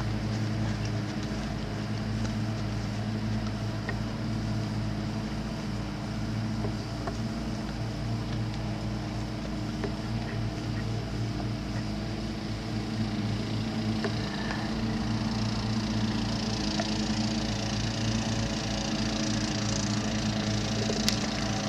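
A steady mechanical hum that holds one even pitch, with a brighter hiss building about two-thirds of the way through and a single sharp click near the end.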